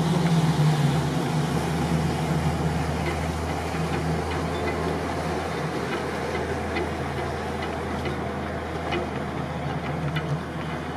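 Boat engines running in a harbour, a steady low hum that is a little louder in the first two seconds.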